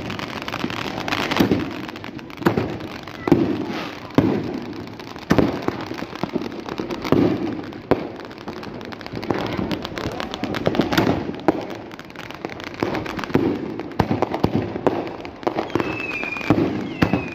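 Fireworks going off: an uneven string of bangs from shells bursting overhead, with crackling in between.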